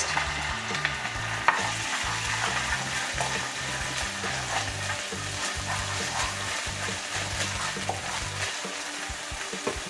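Garlic and ginger garlic paste sizzling steadily in hot oil in a ceramic-coated frying pan, stirred with a wooden spatula that clicks and scrapes against the pan.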